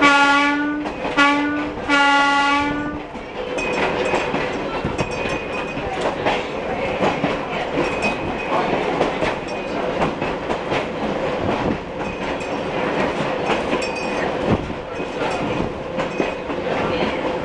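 A streetcar horn gives three short blasts, the last a little longer. Then, heard from inside the car, the New Orleans Public Service streetcar runs along the track with a steady hum and the rattle and clicking of its wheels on the rails.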